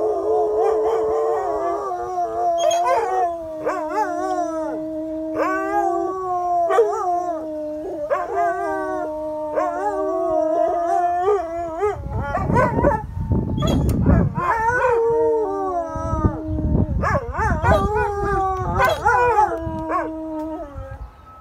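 Two dogs howling together in long, wavering howls that overlap, break off and start again, set off by a passing fire truck's siren. Bursts of rough noise come in about halfway through.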